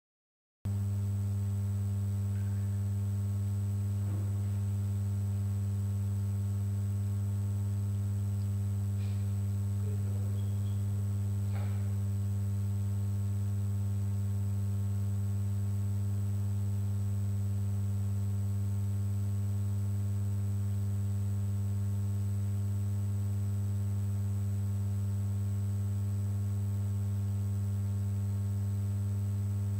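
Steady low electrical hum with a faint high whine above it, cutting in abruptly after about half a second of dead silence as the stream's microphone audio comes on. A few faint brief sounds lie under the hum around four and ten to twelve seconds in.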